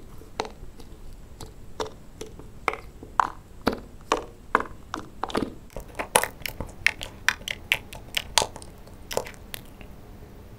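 White slime in a small plastic toy cup being poked and pressed with a fingertip, giving an irregular string of sharp wet pops and clicks as air pockets in the slime burst. The pops come thicker and louder about halfway through and stop shortly before the end.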